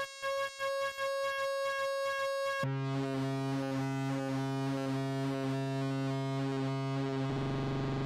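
Behringer UB-Xa analog polyphonic synthesizer playing a quick repeated note. About two and a half seconds in it switches suddenly to a thick, sustained low chord, and the tone turns buzzier near the end as a knob is turned.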